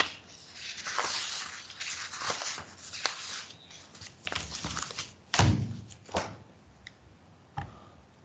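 Scattered knocks, thumps and rustling handling noises at uneven intervals, the loudest a thump about five and a half seconds in.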